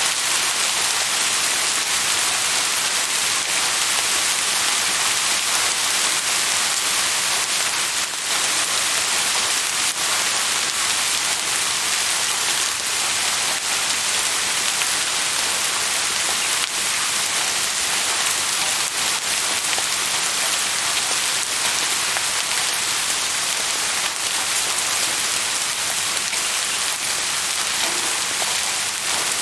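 Steady rain falling on a surface, an even hiss of many drops with occasional single drop ticks standing out.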